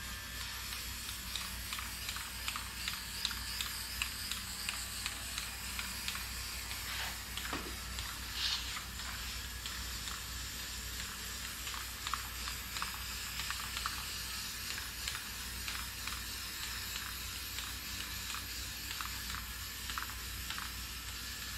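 Aerosol can of rust reformer hissing steadily as it sprays onto bare steel car floor pans, with scattered short clicks and one brief louder sound about eight seconds in.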